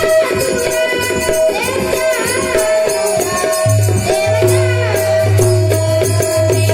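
Devotional bhajan music: a harmonium holding steady reed chords under a fast, even jingling percussion beat, with a melody line bending up and down over it.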